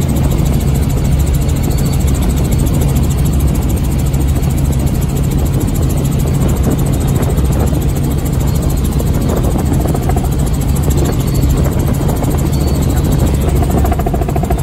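Tour helicopter in flight, heard from inside the cabin: a steady, loud drone of engine and rotor.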